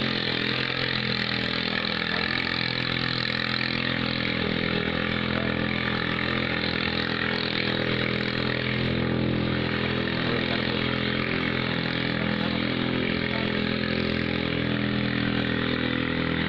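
Small single-cylinder petrol boat engine running steadily at a constant pitch, with no rise or fall in speed.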